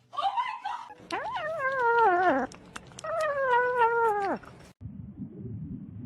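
A cat yowling: a short call, then two long drawn-out yowls that waver and fall in pitch at the end. It cuts off suddenly and gives way to a low rumbling noise.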